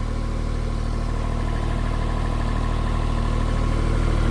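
Mini skid steer loader's diesel engine running steadily, growing gradually louder.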